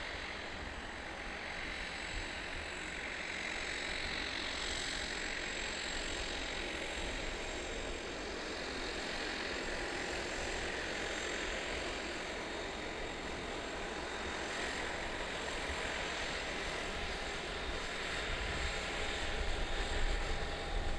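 Aircraft engine running steadily: a continuous rush with a thin, steady high whine over it.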